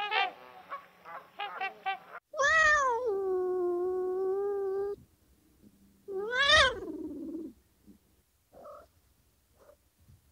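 A few short honking calls from black swans, then a domestic cat meows twice. The first meow is long and drawn out, falling and then holding steady. About a second later comes a shorter one that rises and falls.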